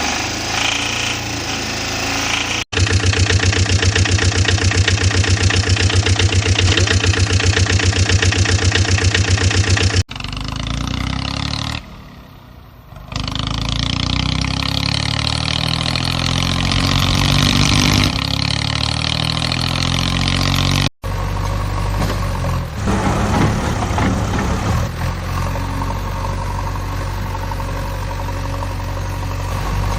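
Motor-vehicle engine running, in several segments joined by abrupt cuts. The loudest stretch is a steady idle with a rapid, even pulse, and later stretches sound like an engine running and revving.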